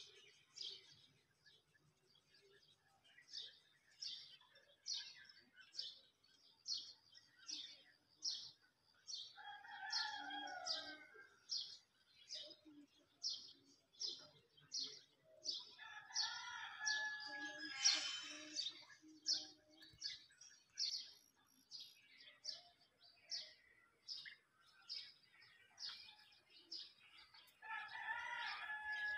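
A rooster crowing three times, each crow lasting a couple of seconds, over a steady run of short, high bird chirps at about two a second.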